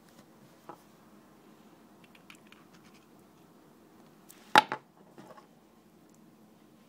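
Light clicks and scratches of an eGo e-cigarette battery being handled and pried apart, with one loud sharp crack about four and a half seconds in and a smaller one right after it.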